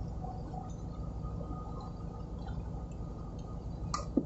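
Faint handling sounds as a gloved hand works grease onto a brass starting air valve piston, over a steady low hum. A single sharp click about four seconds in.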